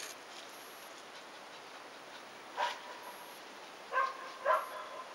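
Shiba Inu dogs barking in short, high yips: one about two and a half seconds in, then two close together near the end.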